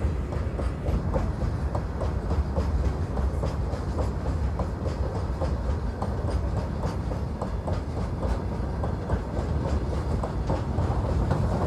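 Empty BOXNHL covered freight wagons of an Indian Railways goods train rolling past: a steady low rumble with a rapid run of wheel clicks over the rail joints.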